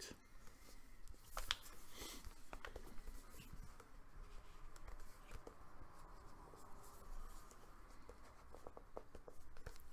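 Cardboard product box handled and turned over in the hands: faint scraping and rustling with scattered small taps and clicks.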